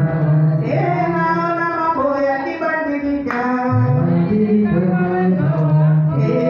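Singing over music, with long held notes that move step by step.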